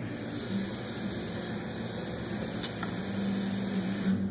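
Steady hiss that cuts off suddenly near the end, with a faint clink of cutlery on the plate a little past halfway.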